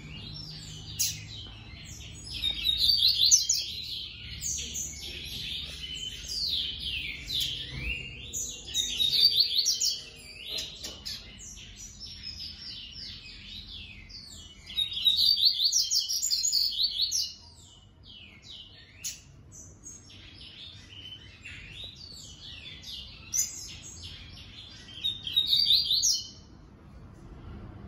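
Caged male coleiro-baiano (yellow-bellied seedeater) singing: fast twittering song phrases a few seconds long, repeated several times, with scattered short chirps between them.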